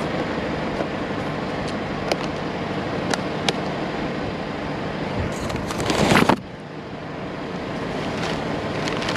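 Steady street traffic noise, with a few light clicks from a plastic takeout container being closed and handled. Near the middle a loud rustle of packaging builds for about a second and stops sharply.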